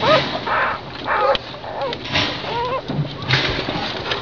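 Newborn puppies whimpering and squeaking in short, rising-and-falling cries several times, among bursts of noise.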